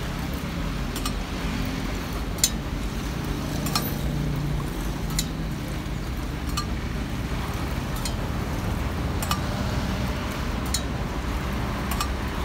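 Stainless steel mugs clinking against each other about once every second and a half as black Thai tea is pulled, poured back and forth between them to mix it instead of stirring. A steady low background rumble sits underneath.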